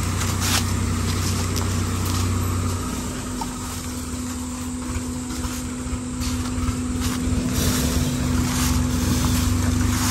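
Mahindra Thar's engine running as the SUV crawls slowly off-road over dry bamboo leaves. A steady low engine hum drops in level about three seconds in.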